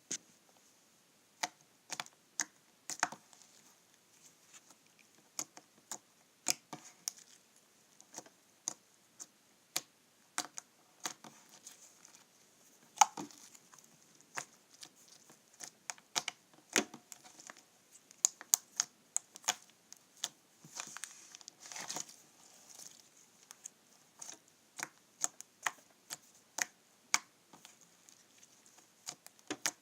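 Homemade fluffy slime of glue, shaving cream and borax being squeezed and stretched by hand, giving irregular sharp clicks and pops of trapped air, with some crackly stretches between them.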